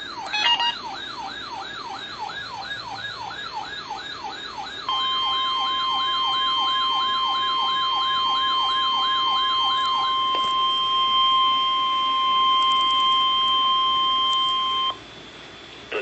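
A weather radio receiver's alert siren warbles, about two and a half sweeps a second, until about ten seconds in. About five seconds in, the broadcast's steady 1050 Hz NOAA warning alarm tone joins it, louder, and holds for about ten seconds. It cuts off shortly before the end, signalling that a warning message follows.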